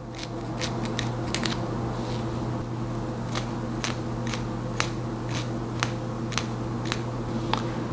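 Tweezers clicking sharply at irregular intervals, about two a second, as hairs are plucked from a wig's lace closure hairline, over a steady low hum.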